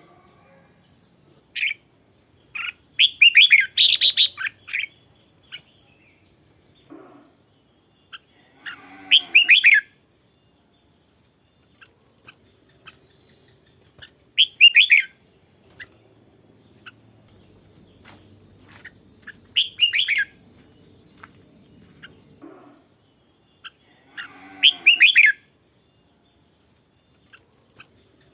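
Red-whiskered bulbul singing short, loud phrases of chirping notes, one burst every five seconds or so, the longest about two seconds long near the start.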